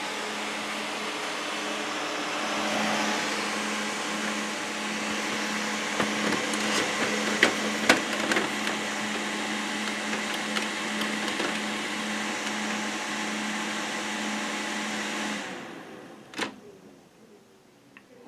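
Desktop computer's fans whirring steadily with a low hum while the machine runs but does not post, with a few light clicks partway through. The whir stops suddenly about fifteen seconds in as the power is cut, followed by a single knock.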